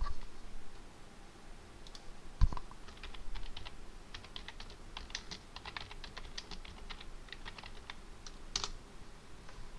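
Computer keyboard typing: a run of quick key clicks, with a louder single key press near the end. A dull thump about two and a half seconds in.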